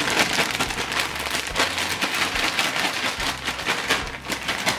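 A plastic Ziploc bag crinkling and rustling rapidly as hands shake and knead strips of raw sirloin inside it, coating them in cornstarch and salt.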